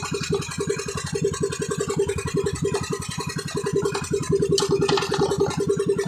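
Small engine of a motorized outrigger boat running steadily at trolling speed, a rapid, even chugging beat.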